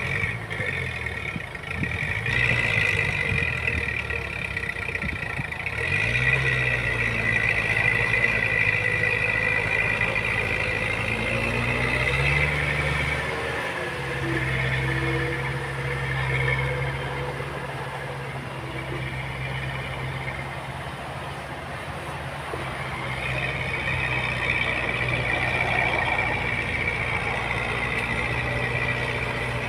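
Diesel engine of heavy earthmoving machinery running under load, its note stepping up a few seconds in and again about twelve seconds in, then holding steady, with a high whine rising and fading over it.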